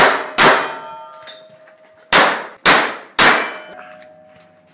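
Semi-automatic pistol fired five times: two quick shots, a pause, then three shots about half a second apart. After several of them a steel target rings on with a steady metallic tone.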